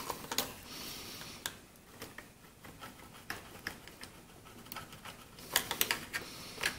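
Scattered small clicks and taps of needle-nose pliers working on the Husqvarna 125b leaf blower's engine parts by the carburetor, with a quick run of clicks near the end.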